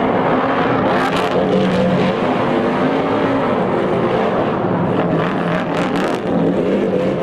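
NASCAR Sprint Cup car's V8 engine revving hard through a burnout, its rear tyres spinning and smoking on the pavement; the engine pitch rises and falls a little as the throttle is worked.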